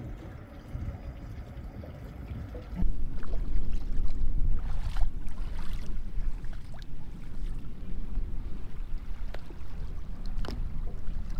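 Water lapping and splashing against a small boat's hull, under heavy wind rumble on the microphone. The rumble grows much louder about three seconds in, with a few light knocks scattered through.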